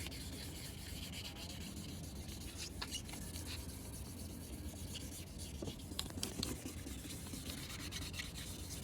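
Faint, steady rubbing of 1000-grit wet sandpaper worked by hand over a plastic headlight lens, with a few light ticks.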